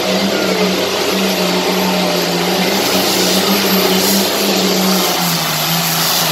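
Modified Allis-Chalmers D21 pulling tractor's turbocharged diesel engine running flat out under load as it pulls the sled down the track. The engine note is loud and steady, dropping slightly in pitch about five seconds in.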